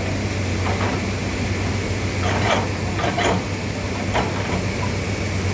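Heavy diesel machinery running steadily with a low drone, with a few short knocks and clatters: one about a second in, a cluster in the middle, and another near the end.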